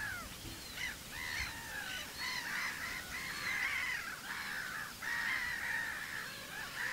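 A flock of black-headed gulls calling, many calls that slur downward overlapping without a break.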